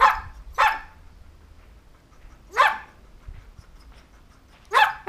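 A dog barking in four short, single barks: two in quick succession at the start, one about two and a half seconds in, and one near the end.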